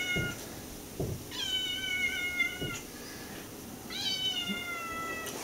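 A house cat meowing twice: two long, drawn-out meows, the second starting about two and a half seconds after the first.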